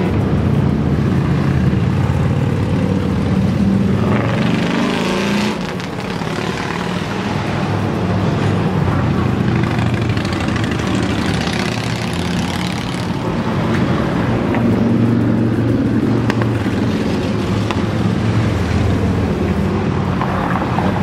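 Motorcycle engines running as bikes pass one after another along a street, the sound swelling several times as each goes by, with car traffic mixed in.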